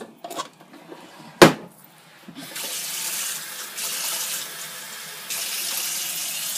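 A sharp knock about a second and a half in, then a kitchen faucet running steadily, filling a container with water for the rice cooker. The flow grows louder a little past five seconds in.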